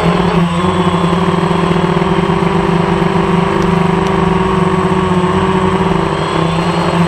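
A light aircraft's engine running steadily in flight, heard loud from on board as an even, unbroken hum.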